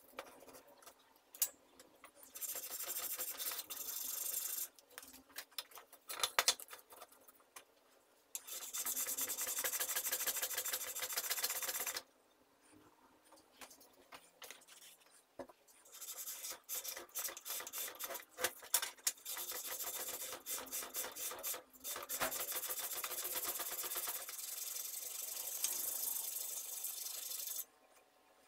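Chisel blade rubbed back and forth by hand on 120-grit sandpaper fixed to a wooden block: a dry, rasping scrape made of quick strokes, in long runs with a few short pauses.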